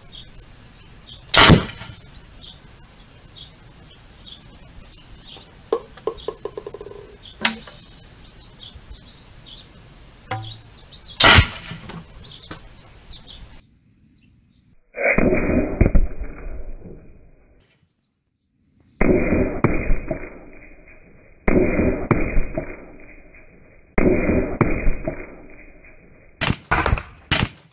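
Home-built compressed-air golf ball gun firing: two sharp, loud cracks about ten seconds apart. Then the shot and the watermelon bursting are played back slowed down several times, heard as deep, dull booms that fade slowly, followed by a few quick sharp cracks near the end.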